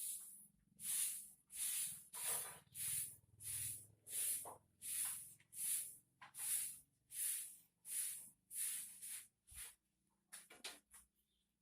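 Broom sweeping with brisk, regular hissing strokes, about one and a half a second, breaking off about ten seconds in.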